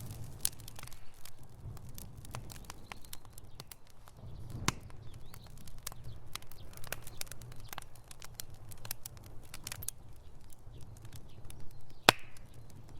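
Wood fire in a fireplace crackling, with many small snaps over a low rumble of the flames. There is a sharper pop about five seconds in, and the loudest pop comes near the end.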